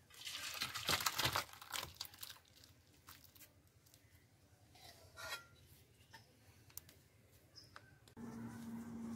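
Thick chicken curry pouring out of a metal kadai into a steel bowl, with a wet slide and scrape of the pan against the bowl for about two seconds, then a few light clinks. About eight seconds in a steady low tone starts.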